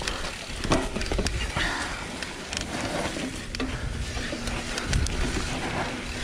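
Mountain bike clattering and rattling, with a run of sharp knocks and clicks over rough, rumbling noise.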